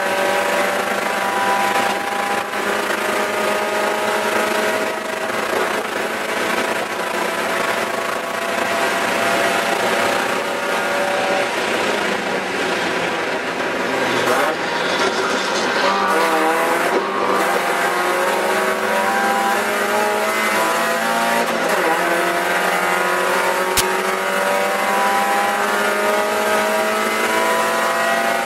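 Spec Miata race car's four-cylinder engine heard from inside the cabin at racing speed, its note climbing in long rising pulls through the gears. Around the middle the engine note drops and turns choppy for a few seconds, then climbs again.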